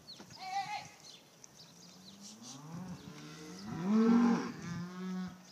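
A cow mooing: one long, low moo that rises in pitch and is loudest about four seconds in. A short, higher call comes about half a second in.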